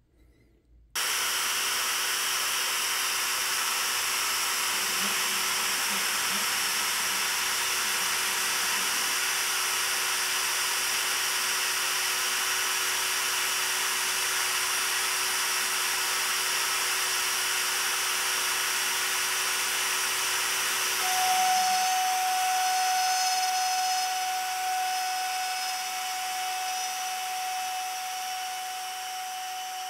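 Trim-router spindle on a Genmitsu 4040 Pro desktop CNC switching on about a second in and running steadily. About 21 seconds in a steady whine joins it, and the sound then slowly fades over the last several seconds.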